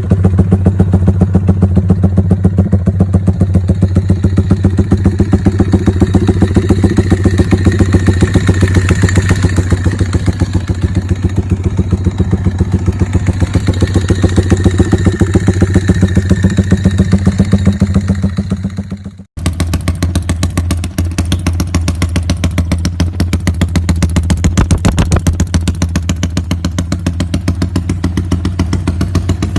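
Yamaha Y15ZR motorcycle's single-cylinder four-stroke engine and exhaust running at a steady speed with an even pulsing beat. About two-thirds of the way through the sound cuts out abruptly and the same kind of engine sound resumes, as from a second recording.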